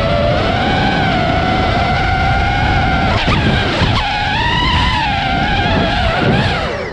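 Nazgul5 5-inch FPV quadcopter's brushless motors and propellers whining in flight, the pitch rising and dipping as the throttle changes, over a rough rushing noise. The whine drops away near the end as the throttle is cut.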